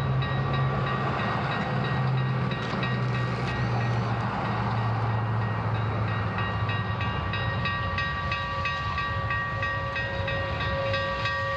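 Union Pacific 3985, a Challenger-type articulated steam locomotive, working a passenger train past at low speed: a steady heavy rumble with steady high thin tones over it, and a regular clicking that comes in during the second half.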